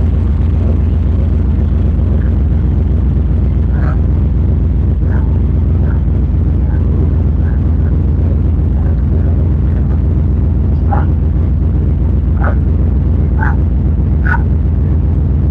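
Race truck's engine running, a loud, steady low rumble that overloads the microphone and comes out distorted and muffled, like a tuba played underwater.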